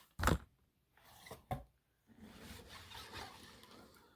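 A cardboard box being opened by hand: a sharp knock near the start, a smaller one about a second and a half in, then about two seconds of rubbing and scraping as flaps and packaging are pulled open.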